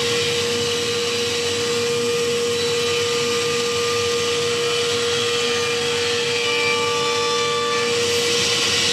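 Stationary woodworking power tool running steadily as a board is pushed through it by hand: a loud hiss with a constant motor whine.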